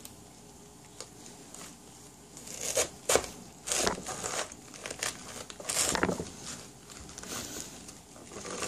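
Kitchen knife forced through a dense, tightly packed head of green cabbage, the leaves cracking and crunching in loud bursts about three, four and six seconds in. The sound is very crisp, the sign of a fresh, heavy, tight head that barely lets the blade through.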